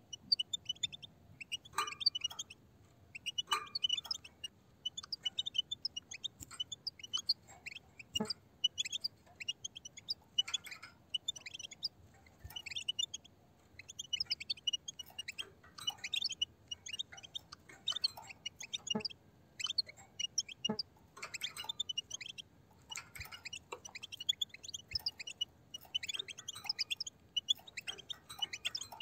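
A group of European goldfinches calling: a steady stream of short, high twittering chirps overlapping one another, with a few sharp clicks.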